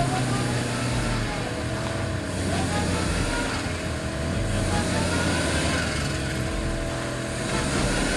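Motor vehicle engine running steadily under load while a car tows a bus out of deep mud, with faint voices in the background.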